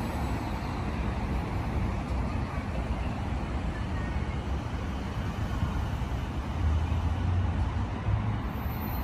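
Keiyo Line E233-series electric commuter train pulling out of the station: a steady low rumble of wheels and running gear, which swells about seven seconds in.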